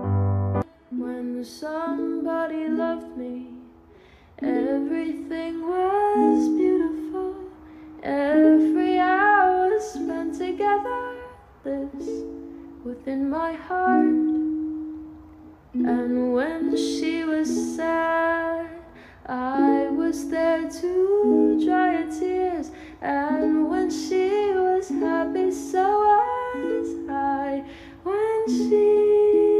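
Background music: plucked strings, ukulele-like, with a voice carrying a melody in phrases a few seconds long.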